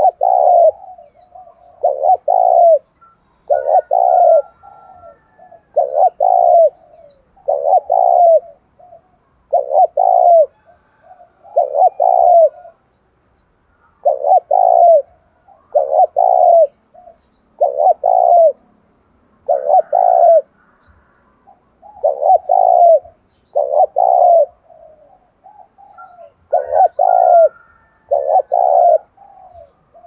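Spotted dove cooing over and over, a short low coo phrase about every two seconds, in the fast, driving 'thúc' style that keepers train for contests. Faint high chirps of small birds come in now and then.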